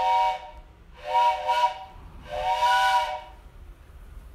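Train whistle blown three times, each blast under a second long, a chord of several notes sounding together over a breathy hiss.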